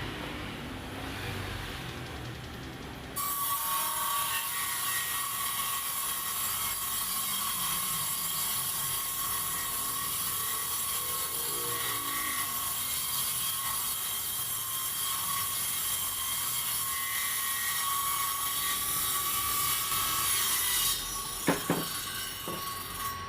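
Table saw running steadily with a fixed whine and a high hiss as it rips a wooden strip. It starts abruptly about three seconds in and stops near the end, followed by two sharp knocks.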